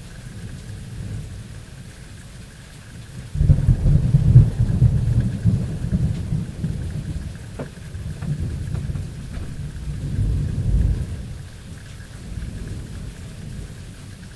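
Thunder over steady rain: the thunder breaks suddenly about three seconds in and rolls on as a deep rumble, swells again later, then dies away under the rain.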